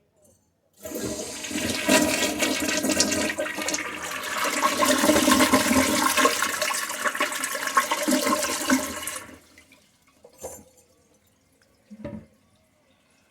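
Kohler Leighton toilet flushing: a loud rush of water starts about a second in, runs for about eight seconds, then dies away. Two short sounds follow near the end.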